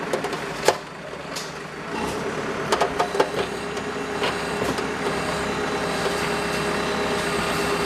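Street repair work: a heavy vehicle or road machine's engine running steadily, with scattered sharp knocks and clacks, most of them in the first few seconds.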